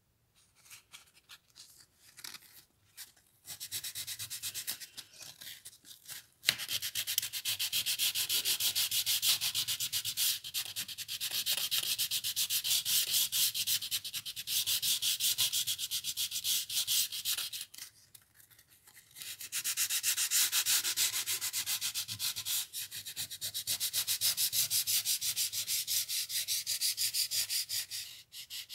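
Hand sanding the wooden body of an old spirit level with a 120-grit sanding disc: quick back-and-forth rasping strokes. A few light handling sounds come first, the sanding grows louder a few seconds in, and it stops for about a second and a half two-thirds of the way through before going on.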